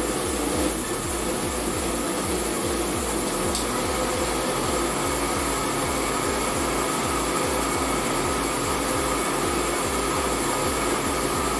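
An old electric countertop blender running steadily, puréeing cooked guava with its cooking water.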